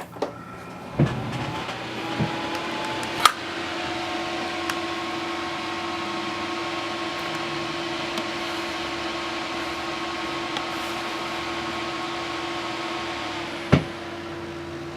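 A computer with three EVGA GeForce GTX 970 SC graphics cards powering on: a click and a thump, then the fans spin up with rising tones and run at a steady whir. Near the end there is another thump and the higher tones drop away, leaving a lower steady hum.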